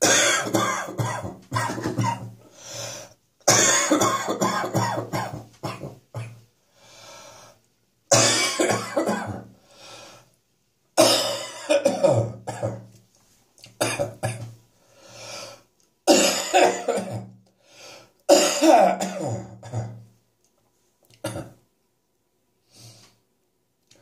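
A man coughing and clearing his throat in repeated fits, about seven bouts of a couple of seconds each, then two short coughs near the end. It is a productive cough bringing up catarrh left over from a chest infection.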